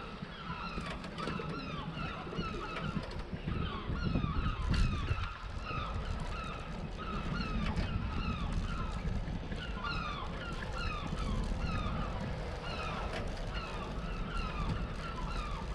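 Rapid, repeated short high squeaks, each falling in pitch, from the moving bicycle, over the rumble of its tyres on brick paving.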